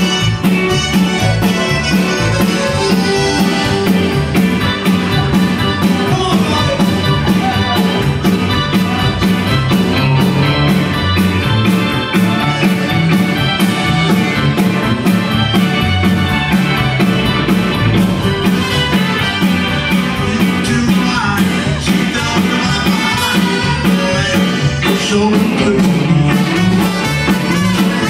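Live Tex-Mex conjunto band playing a song with a steady beat: button accordion, electric guitar, bass and drum kit, with a trumpet toward the end.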